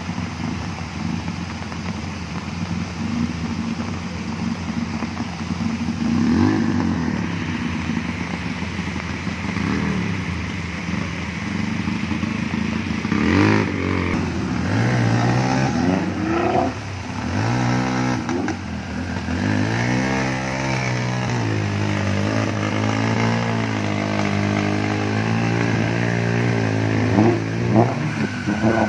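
Daihatsu Taft 4x4's engine pulling through a fast-flowing flooded river, over the steady rush of the water. From about halfway the engine revs rise and fall again and again as the vehicle pushes through the current.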